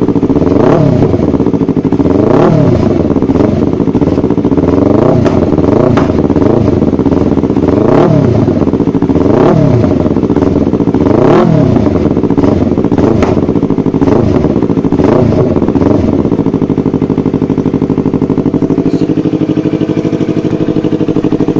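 Yamaha YZF-R25's 249 cc parallel-twin engine breathing through an aftermarket Yoshimura exhaust, revved up and dropped back about ten times in quick succession, with a few sharp pops from the exhaust. About sixteen seconds in it settles to a steady idle.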